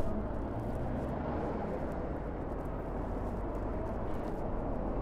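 Steady wind and road noise from riding a Harley-Davidson LiveWire electric motorcycle, with a faint whine from its electric motor.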